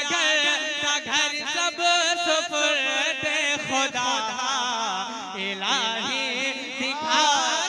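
Devotional naat singing: a voice holding long, wavering melismatic lines over a steady held drone.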